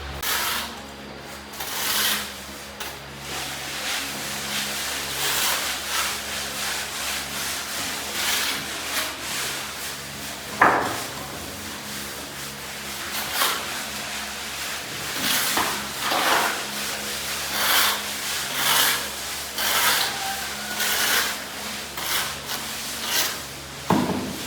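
Repeated rough scraping or rubbing strokes, about one a second and uneven in strength, with one sharper stroke about ten seconds in.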